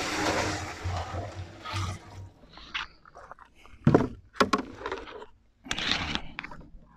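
Weak țuică pouring from a bucket into a copper pot still, filled for a second distillation into pălincă, for about the first two seconds. A few sharp knocks of the bucket and its handle follow about four seconds in, and a shorter scraping noise comes near the end.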